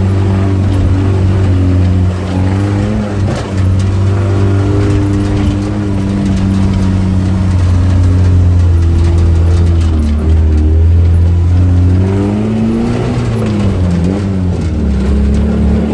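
Off-road vehicle's engine running under load, heard from inside the open cabin, its pitch dipping and rising several times near the end as the throttle is worked. Short rattles and knocks from the vehicle over the rough dirt track.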